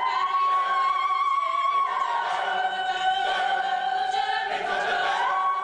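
Mixed high school choir singing long held chords in a school gym. The top voice holds a high note, drops lower in the middle, then slides back up near the end.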